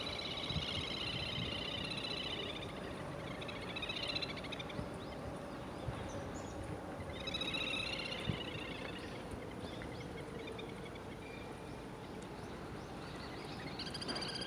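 Small birds calling: four buzzy, rapidly pulsed trills of one to three seconds each, over a steady low background hum.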